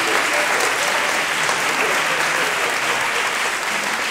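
Theatre audience applauding, a steady, even clapping that goes on without a break.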